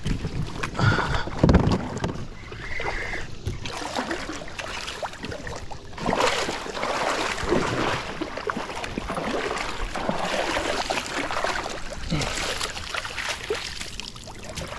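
Water splashing and sloshing around a fishing kayak as a hooked smallmouth bass thrashes at the surface while it is fought and landed, with irregular bursts of splashing.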